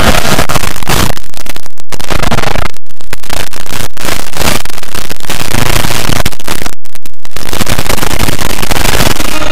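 Harsh, clipped wall of distorted noise from many edited effect versions of a cartoon logo's audio playing over each other at once. It runs at full volume, broken by a few split-second gaps.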